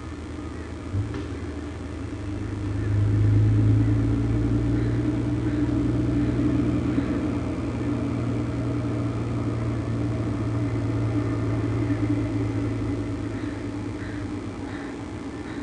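Low, steady engine hum picked up by the nest microphone, swelling about three seconds in and slowly fading, as of an engine passing. A single sharp click about a second in.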